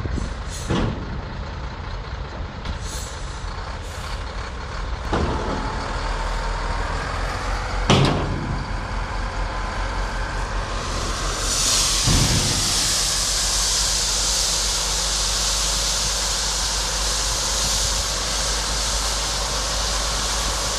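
Heavy dump truck's diesel engine running with a steady low rumble, with several short sharp clanks and hisses in the first half. From about halfway a steady hiss sets in and continues over the engine.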